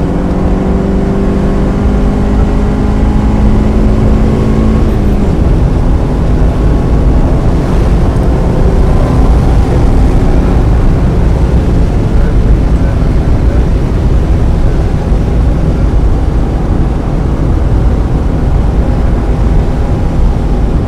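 1995 Mazda Miata's 1.8-litre four-cylinder engine pulling with its pitch slowly rising, then dropping sharply about five seconds in. After that a heavy, even rushing noise of wind and wet-track spray dominates, with the engine running underneath.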